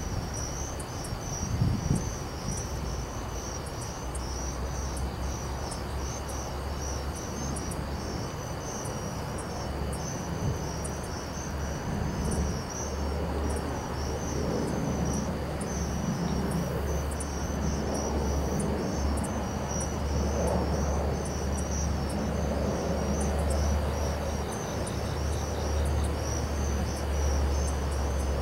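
Night insects chirping in a steady pulsing chorus, over a low steady rumble that grows stronger about halfway through.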